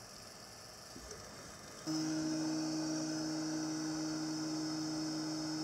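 A steady electrical hum that switches on suddenly about two seconds in, with a faint high hiss over it.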